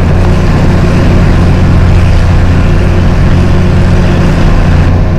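Tractor engine running steadily: a loud, even low hum.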